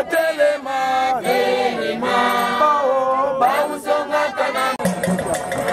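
A group of voices singing a chant together, like a choir, in long gliding phrases.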